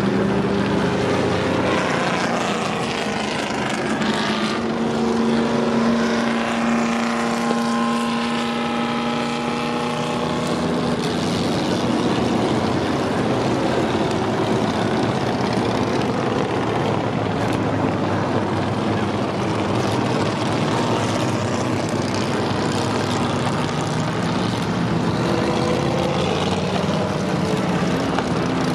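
A procession of classic racing and sports cars, among them Shelby Cobras and Ford GT40s, driving slowly past in a pack, many engines running together in a dense, steady drone. One engine's note stands out for several seconds, from about four to eleven seconds in.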